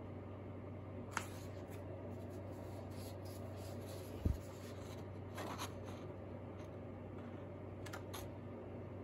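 Sheets of drawing paper and card being handled and shuffled: brief paper rustles and light taps, with a soft thump a little over four seconds in, over a steady low hum.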